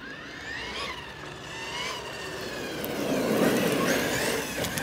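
Thunder Tiger EMTA radio-controlled monster truck's electric motor whining, its pitch rising and falling with the throttle. Its tyres scrabble across loose gravel, loudest about three to four seconds in.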